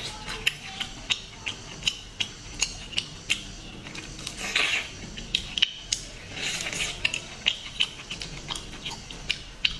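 Seafood being eaten: irregular sharp clicks of shells and utensils against dishes, with two longer hissy bursts of eating noise about four and a half and six and a half seconds in.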